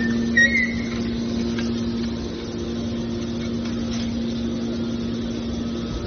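Hydraulic scrap-metal baler's power unit running with a steady hum, with a few short high squeals near the start.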